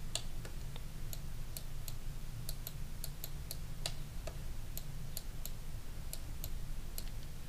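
Computer mouse and keyboard clicking: short, sharp clicks at irregular intervals over a steady low hum.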